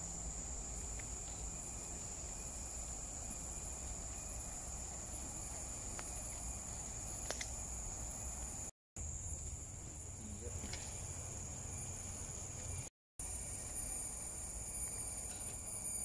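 Steady, high-pitched drone of tropical forest insects, held on two unwavering tones over a low rumble. It cuts out briefly twice, about nine and thirteen seconds in.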